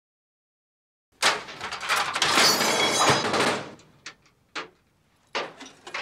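Metal school locker being opened with a loud rattling clatter, followed by a few short knocks.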